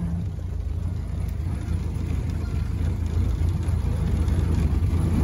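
1929 Ford Model A sedan's four-cylinder engine running steadily while the car cruises slowly, heard from inside the cabin, its sound sitting low.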